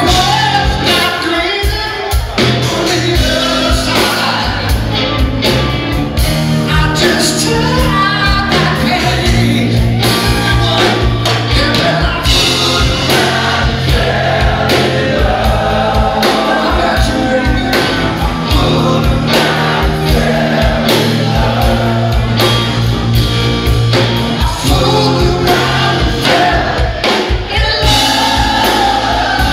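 Live rock trio playing loud: electric guitar, bass guitar and drums with male vocals.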